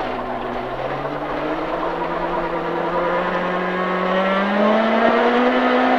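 Honda Civic Type-R rally car's engine heard from inside the cabin, accelerating hard, its pitch and loudness rising steadily, then holding level for the last second or so. Road and tyre noise forms a rushing layer underneath.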